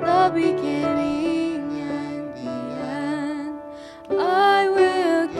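A slow worship song: a female voice sings a melody with a slight vibrato over instrumental accompaniment. One phrase fades out a little before four seconds in and a new one begins right after.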